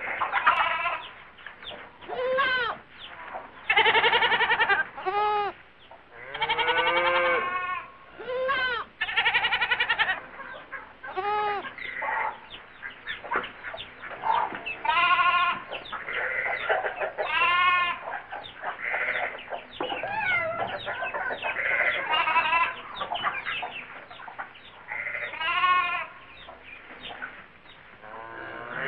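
Goats bleating again and again, each call about a second long with a quavering pitch, mixed with the clucking of hens.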